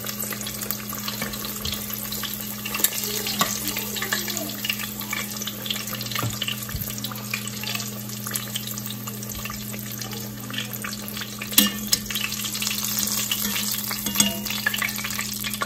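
Breaded chicken strips deep-frying in oil at medium heat in an enamelled cast-iron Dutch oven, a steady crackling sizzle. A few sharp clicks of metal tongs against the pot come near the end as pieces are lifted out, over a steady low hum.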